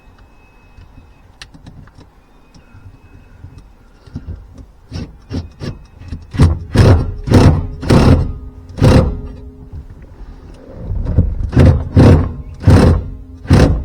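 A run of loud, short knocks, about two a second, that starts faint about four seconds in and builds up, pauses briefly around ten seconds in, then goes on strongly.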